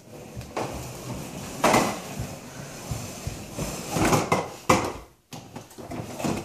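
Hard plastic wheels of a toddler's ride-on toy dog rolling and rattling over a hardwood floor, with a few louder knocks and bumps.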